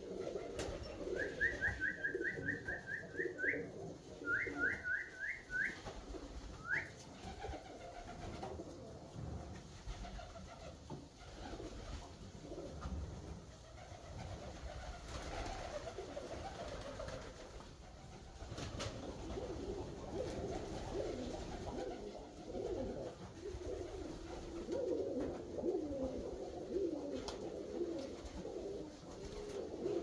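Alföldi-Körösi tumbler pigeons cooing in a low, continual murmur. In the first several seconds there are quick runs of short, high, rising chirps: about eight, then four, then a single one.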